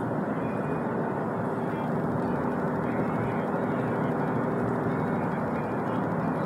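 Steady road and engine noise inside the cabin of a moving vehicle at highway speed.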